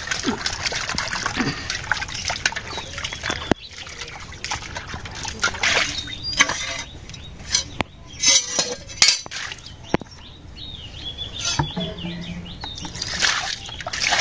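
Water poured from a plastic bucket splashes into a steel bowl as cut eel pieces are rubbed and rinsed by hand. Near the end, water is poured over a knife blade onto a concrete floor. The splashing comes in several separate stretches.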